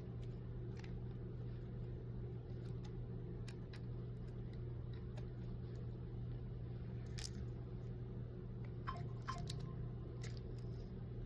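Light clicks and taps of small hand tools working on a smartphone during a screen replacement, over a steady low machine hum. About nine seconds in there are two short tones.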